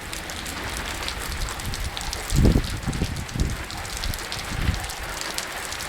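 Rain falling steadily in a thunderstorm, with a low rumble swelling briefly about two and a half seconds in and again a second later.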